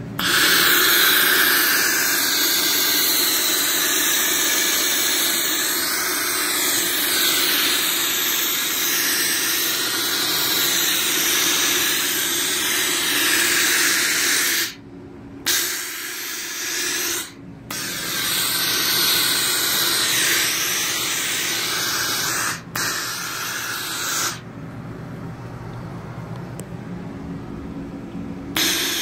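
Polti Cimex Eradicator steam nozzle blowing superheated dry steam in a loud, steady hiss. It stops briefly a few times, falls away for about four seconds near the end, then starts again.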